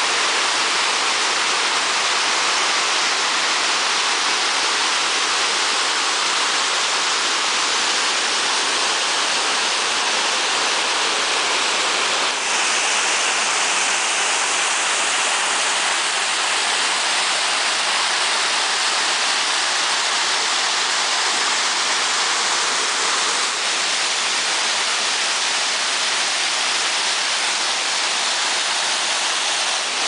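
Mountain stream water cascading over boulders and small waterfalls, a loud, steady rush of falling water. Its tone shifts slightly about twelve and again about twenty-four seconds in.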